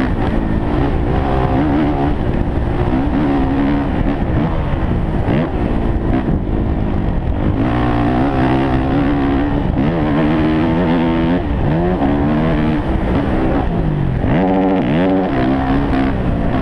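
Motocross dirt bike engine heard on board, revving hard and falling off over and over as the rider accelerates, shifts and slows around a dirt track, its pitch rising and dropping throughout.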